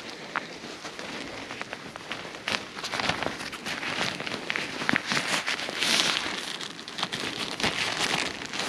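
Close rustling and crackling of a tarp and paracord being handled as toggles are tied onto the ridge line, with many small scattered clicks and a few louder rustles.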